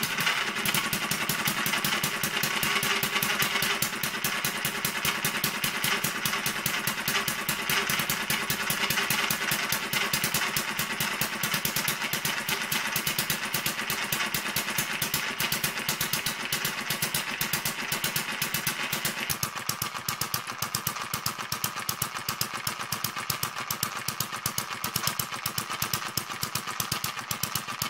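Kerzel hit-and-miss model engine, a small spark-ignited petrol engine, running on its own just after starting, with a rapid, steady clatter of firing and valve gear. The engine is newly built and still running in, so its governor mechanism and gears are stiff and noisy.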